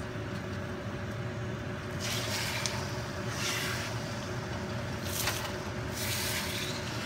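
A steady low machine hum with a faint held tone, and four short bursts of hiss beginning about two seconds in.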